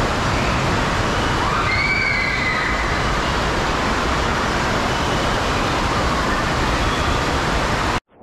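Steady rush of running water from water-slide runouts and landing pools echoing through an indoor water park hall. It cuts off abruptly near the end.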